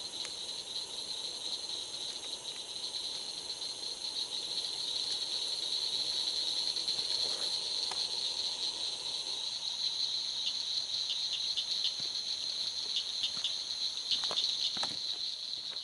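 Steady high-pitched chorus of night insects trilling without a break. A few light clicks and two soft knocks come near the end.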